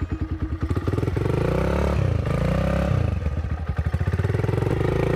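Small air-cooled dirt bike engine running, revved up and back down a few times, then dropping to a pulsing idle before rising again near the end.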